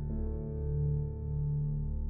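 Ambient background music: slow sustained keyboard chords over a deep, softly pulsing bass, with a new chord coming in just after the start.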